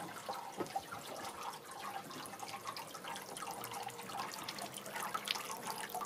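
Solar bird bath fountain jet running: a steady splashing of water falling back into the basin, with many small drips.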